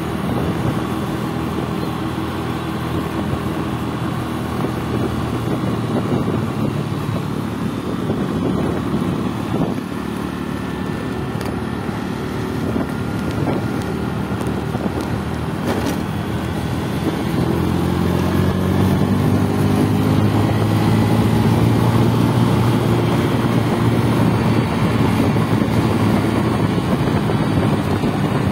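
Motorcycle engine running steadily while riding along a road. About two-thirds of the way through it gets louder and its note rises as the bike speeds up.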